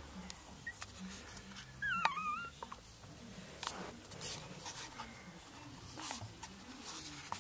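A newborn puppy gives one short, wavering whimper about two seconds in, with soft scattered clicks and rustles around it.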